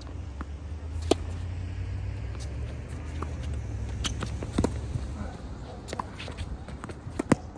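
Sharp knocks of a tennis ball being struck and bouncing, a few seconds apart, with the loudest about a second in and near the end. Under them a low vehicle rumble that fades out about five seconds in.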